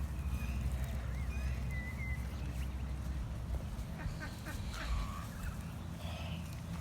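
Farmyard fowl calling: scattered short chirps and calls, the loudest about five seconds in, over a steady low rumble.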